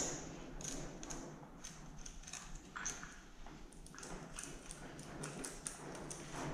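A loose steel chainsaw chain clicking and clinking in irregular little clicks as its links are worked through the fingers.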